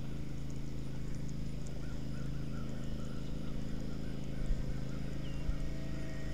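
Zebco spincast reel cranked steadily to retrieve the line: a fast, even clicking whir from the reel's gears.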